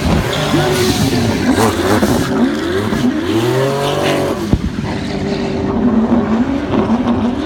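Drift car engine revving hard, its pitch rising and falling several times with a long climb about three seconds in, over the noise of spinning, sliding tyres.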